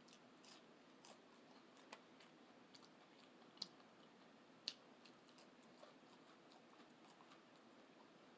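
Faint close-up eating sounds: chewing with scattered small wet mouth clicks, two sharper clicks about a second apart a little before the middle.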